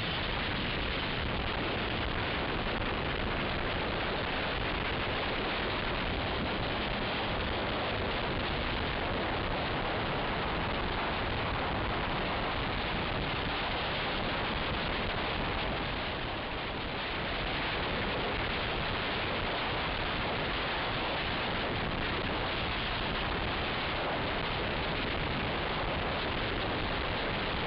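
Steady rushing wind noise on the microphone of a camera carried on a moving motorcycle, with no engine note standing out. It eases briefly a little past halfway through.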